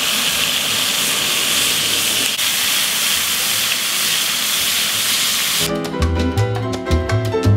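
Rooster pieces searing in hot oil in an enamelled cast-iron pot, a loud, steady sizzle. About five and a half seconds in, salsa music with a bass line starts up over it.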